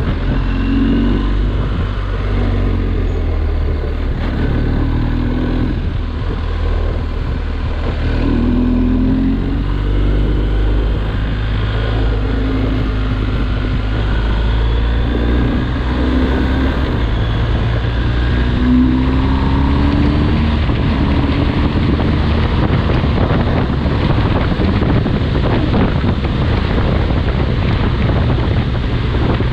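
BMW R 1250 GS boxer-twin engine running as the motorcycle rides along, with wind rushing over the microphone. The wind grows louder in the second half as the bike speeds up.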